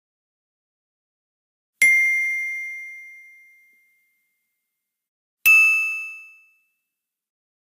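Two separate bell-like ding chimes, the kind of answer-feedback sound effect used in quizzes: the first about two seconds in rings out for about two seconds, the second, slightly higher, comes about five and a half seconds in and fades within a second.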